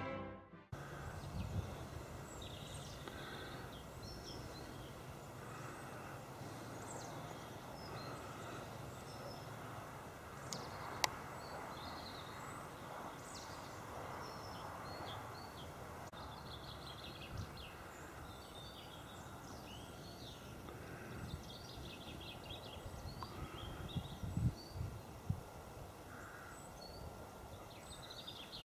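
Small birds chirping again and again over a steady low hiss and rumble of open-air ambience. A single sharp click comes about eleven seconds in, and a few low thumps near the end.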